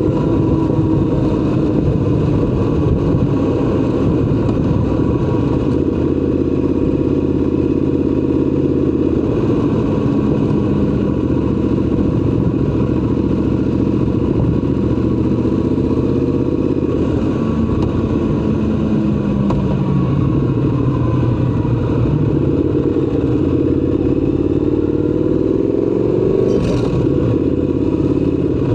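Triumph Scrambler 1200 XC's 1200 cc parallel-twin engine running steadily on the road, its pitch repeatedly rising and falling with the throttle. A brief sharp click comes near the end.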